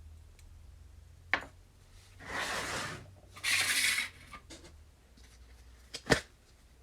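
Workshop handling sounds from hands-on tool work: a sharp tap, then two short scraping strokes, then a sharp double knock, the loudest sound, near the end, over a faint steady hum.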